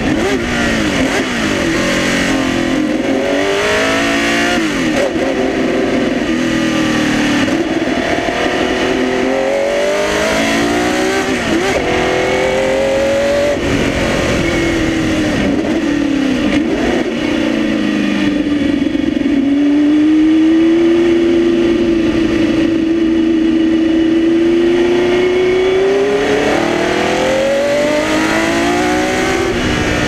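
1972 Tecno PA123/3 Formula 1 car's 3-litre flat-12 engine heard on board, under load and rising and dropping in revs again and again as the car accelerates and lifts around the circuit. About two-thirds of the way through it holds a long steady pull before climbing once more near the end.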